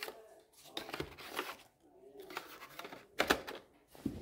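Cardboard phone box and paper leaflets being handled: scattered light clicks, taps and rustles, with a sharper knock about three seconds in.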